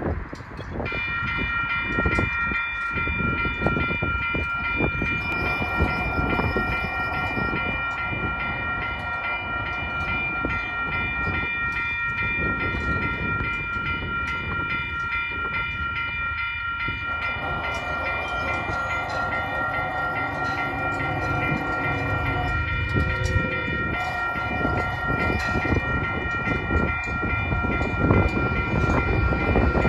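Railroad crossing bell starts ringing about a second in and keeps ringing steadily as the signals flash and the gates lower for an approaching train. Over a broad rumbling background, a train horn sounds in long blasts.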